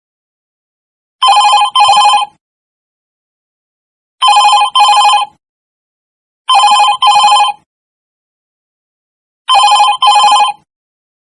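Telephone ringtone ringing in double rings: four rings, each made of two short warbling pulses, repeating every two to three seconds with silence between them.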